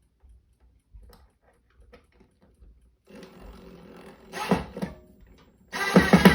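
Power drill driving a screw into a shade bracket: the motor runs briefly about three seconds in, with a short louder spurt, then runs hard near the end with a rapid rattling pulse.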